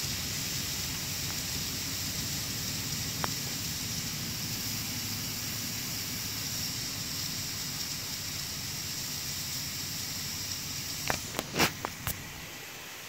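Steady hiss of water sizzling against hot cans of molten HDPE plastic standing in a water-filled pan, as the cans are cooled. A few sharp knocks come about eleven seconds in.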